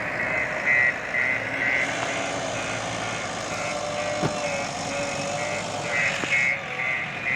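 A reversing alarm beeping about twice a second over a diesel engine running, at a backhoe loader and truck loading site. A louder hiss joins in from about two seconds in and cuts off after about six and a half seconds.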